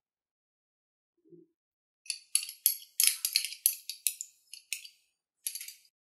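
A quick run of about ten sharp clinks and rattles of kitchen things handled in food preparation, starting about two seconds in, with a short gap before the last one near the end.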